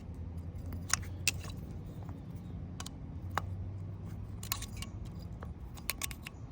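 Irregular metallic clicks and clinks of hand tools and fittings as the fuel line and bolts are worked off a motorcycle carburettor, over a low steady hum.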